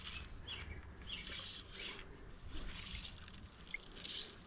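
Soft trickle of stream water, swelling and fading, with a few faint bird chirps.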